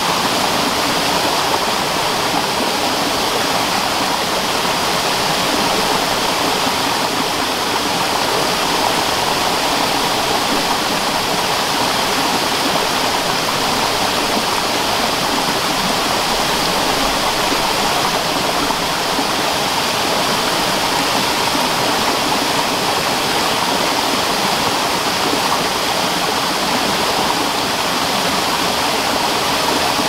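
Waterfall cascading down rocks and over boulders into a rocky stream: a steady, unbroken rush of water.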